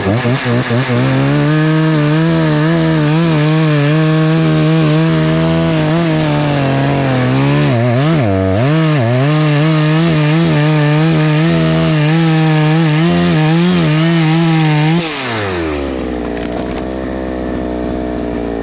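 Husqvarna 288XP two-stroke chainsaw revved to full throttle and cutting the face notch into a tree trunk, its engine speed dipping briefly about eight seconds in. About fifteen seconds in the throttle is released and it drops to idle.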